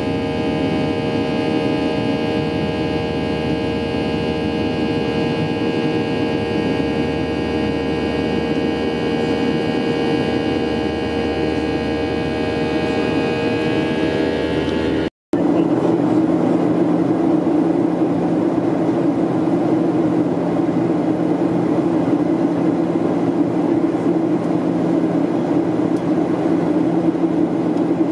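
Cabin noise of a Boeing 737-800 in flight: the steady drone of its CFM56 engines with several held whining tones over rushing air. About halfway through the sound breaks off for an instant and comes back as a lower, rougher rumble without the whine.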